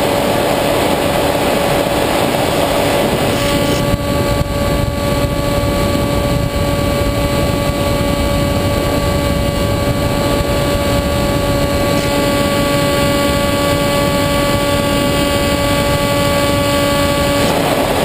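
Onboard sound of a Multiplex EasyStar II RC plane in flight: its electric pusher motor and propeller whine steadily over constant wind rush. From about three and a half seconds in until near the end, the whine takes on a brighter tone with more overtones.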